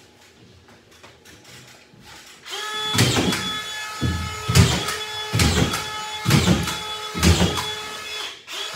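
Collated drywall screw gun running with its motor whining at a steady pitch, driving screws into the ceiling drywall one after another about once a second, starting about two and a half seconds in.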